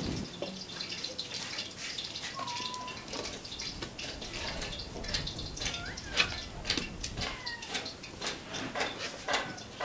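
Wooden spatula stirring a thick liquid in a metal cooking pot, with repeated clicks and knocks against the pot. Short chirping animal calls sound in the background, several times.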